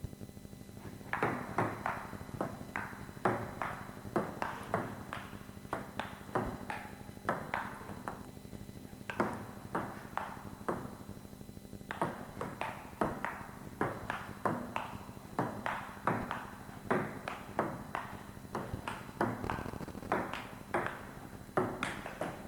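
Series of sharp, ringing taps, about two a second, in irregular runs broken by short pauses, over a low steady hum.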